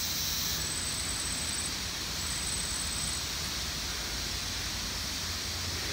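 Steady, even rushing background noise of the forest, with a thin high-pitched whine sounding twice, each time for about a second, in the first half.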